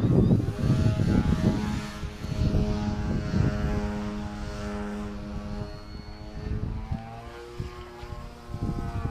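Radio-controlled model airplane's engine and propeller droning overhead, its pitch shifting a little as it manoeuvres and growing fainter through the second half. Wind buffets the microphone in the first second or so.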